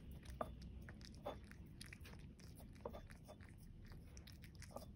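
A Korat cat chewing and licking up dried bonito flakes: faint, irregular crunching and clicking, with a few louder clicks.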